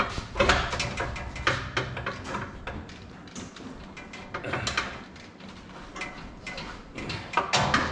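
Irregular knocks and clicks of hand tools and metal parts being handled, a sharp knock about half a second in and another around a second and a half.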